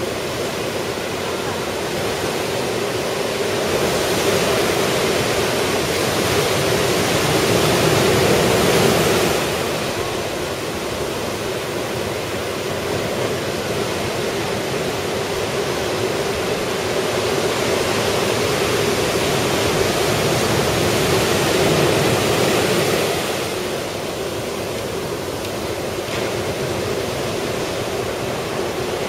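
Ocean surf breaking on the beach under a typhoon swell: a steady wash of noise, with waves building and crashing louder twice, about four seconds in and again around seventeen seconds in.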